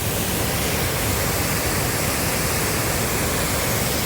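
Powerful waterfall thundering close by: a steady, dense rush of water with heavy low rumble, spray and wind from the falls buffeting the microphone.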